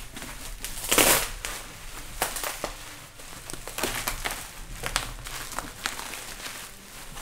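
Plastic bubble wrap crinkling and crackling as it is pulled away from a cardboard box, in irregular rustles with a loud crackle about a second in.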